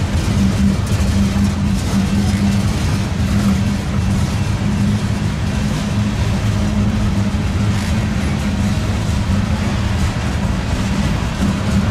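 Freight train of gondola cars rolling past: a steady rumble of steel wheels on rail, with a low hum running under it throughout.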